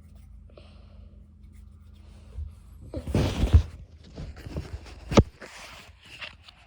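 Hands rolling Play-Doh on a tabletop: a steady low hum at first, then a loud rubbing about three seconds in, a sharp tap a couple of seconds later, and light rustles.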